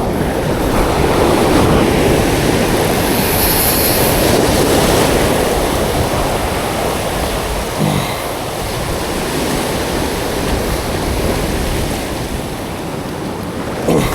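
Sea surf washing steadily, with wind buffeting the microphone and a brief higher hiss about three seconds in.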